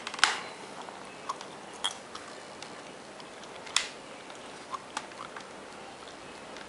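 Snap clips of a Samsung Series 3 (NP350U2B) ultrabook's bottom cover popping loose as a flathead screwdriver pries along the seam: sharp pops, the loudest just after the start and at about four seconds, with smaller clicks and ticks between. The pops are expected and mean the case is being opened correctly, not broken.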